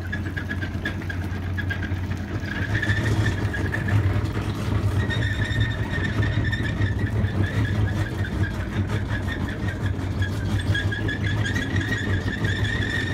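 A motor running steadily: a strong low hum with a high, wavering whine on top that steadies after about five seconds.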